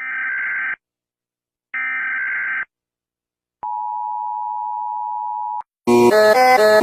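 Emergency alert system signals: two short bursts of buzzing data tones about a second apart, then a steady tone held for about two seconds. Loud electronic music starts near the end.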